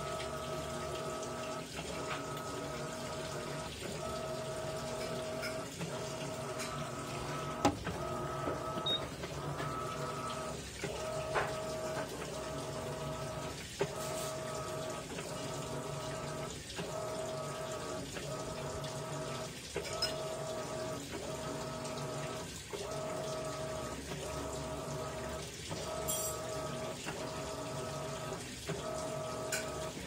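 Electrolux LAI17 17 kg top-load washing machine agitating a load of towels in water. A steady motor hum breaks off briefly about every two seconds as the wash action reverses, over sloshing water.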